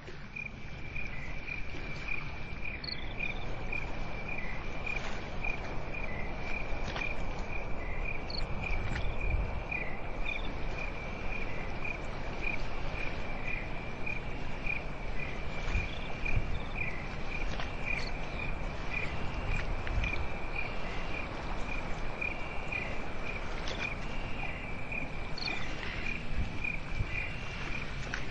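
Crickets chirping at night: one gives short, high chirps at a steady pitch about twice a second, and a second joins with longer chirps in the second half. Underneath is a steady low background hum with a few soft low thumps.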